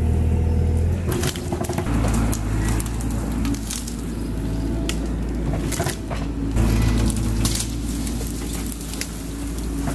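Bobcat E42 mini excavator's diesel engine running steadily under load as its bucket lifts and drags cedar trees out of a pile, with repeated sharp cracks and snaps of branches and wood.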